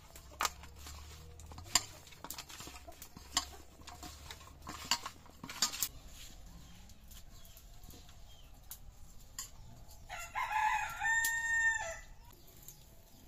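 A rooster crowing once for about two seconds, about ten seconds in, the loudest sound here. Before it, a few light clicks of fish and hand against a steel bowl as the fish is mixed with turmeric and salt.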